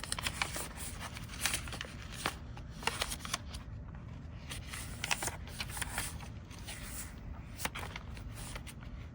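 Paper and cardstock pages of a handmade junk journal being handled and turned, giving irregular light rustles and crackles.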